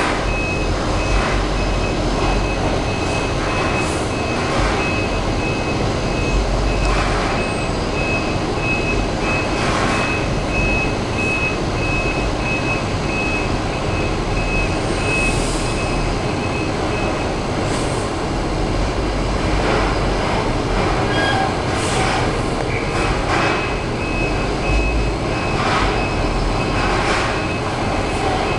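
Garbage truck collecting a metal dumpster: the diesel engine and machinery run loudly with a low rumble, metal clanks come every few seconds, and a high warning beeper repeats most of the time, falling silent for several seconds past the middle.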